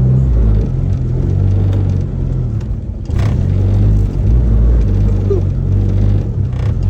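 Car engine idling: a steady low rumble that wavers slightly in pitch and level.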